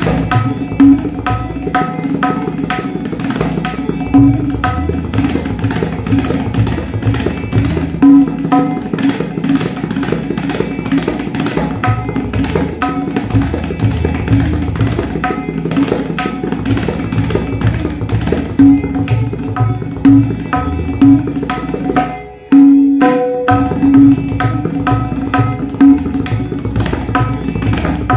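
Tabla played fast: a dhirkit rela in Rupak taal, an unbroken roll of rapid 'dhere-dhere kete tak' strokes on the dayan over low bass strokes on the bayan. Louder accented strokes come every few seconds. The roll breaks off briefly about 22 seconds in and resumes on a loud stroke.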